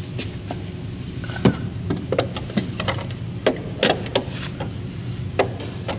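Sharp metal clinks and knocks, about seven of them, as Wisefab trailing-arm brackets are handled and pressed against the car's underbody to test their fit, over a steady low hum.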